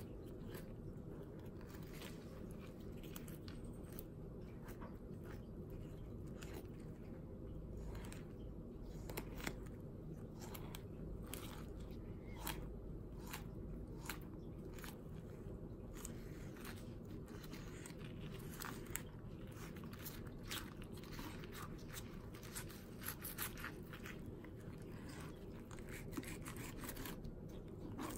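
A knife cutting a rock bass fillet, making scattered small crunches and scrapes as the blade works along the bones and against a plastic cutting board, over a steady low background hum.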